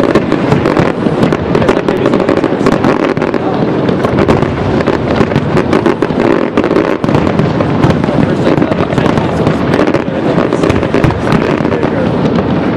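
Fireworks display: a dense, continuous barrage of bangs and crackling from many aerial shells bursting close together.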